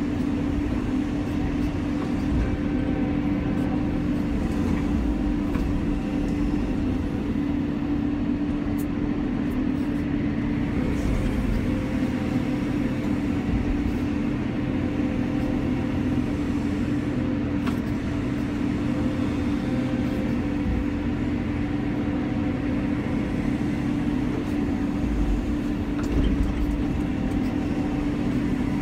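Cat 320 excavator's diesel engine and hydraulics running steadily under load while digging, heard from inside the cab as an even drone with a steady hum.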